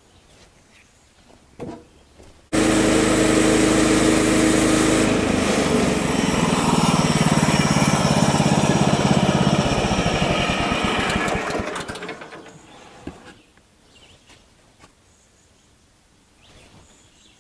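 Woodland Mills HM126 portable bandsaw mill's gas engine running hard as its blade saws a slice off a black walnut round. It starts suddenly about two and a half seconds in, its pitch shifts partway through the cut, and it dies away around twelve seconds. A single thump comes just before it starts.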